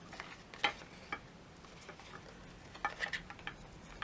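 Cardstock being folded by hand along its score lines: a few light, scattered crinkles and taps, with a small cluster about three seconds in.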